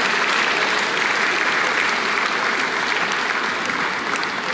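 Concert-hall audience applauding: dense, steady clapping from a large crowd, easing slightly near the end.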